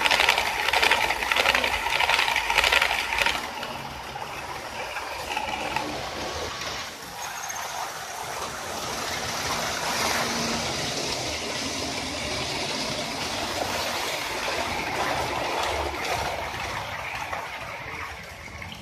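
Model electric trains running on a layout: metal wheels clicking and rattling fast over the rail joints and points, loudest for the first three seconds or so as a train passes close by. After that comes a steadier, quieter running rattle.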